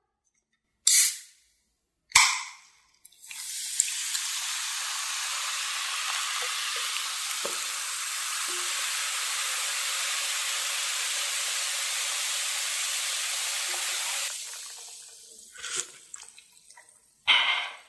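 A can of Coca-Cola Zero Sugar is snapped open with a click and a hiss about two seconds in. The cola is then poured into a glass mug, foaming and fizzing steadily for about eleven seconds before the fizz fades. Near the end come a couple of short sounds of the cola being sipped.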